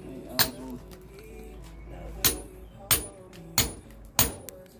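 Hammer blows knocking paving blocks into a sand bed: five sharp strikes, one early on and then four at a steady pace of about one every two-thirds of a second.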